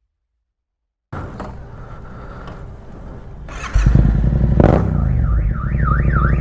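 A 2015 Yamaha MT-07's parallel-twin engine with an Akrapovic exhaust idling, then given a sharp burst of throttle and running louder. About five seconds in, a car alarm set off by the exhaust starts a rapid rising-and-falling warble over the engine.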